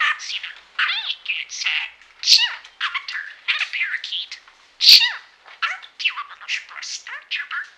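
Talking budgerigar chattering rapidly in a high, buzzy voice, mimicking human phrases ("rakastan sinua", "I'm a doctor, not a parakeet", "Aren't you a little short for a stormtrooper?") run together with warbles and chirps. One sharp, loud syllable stands out about five seconds in.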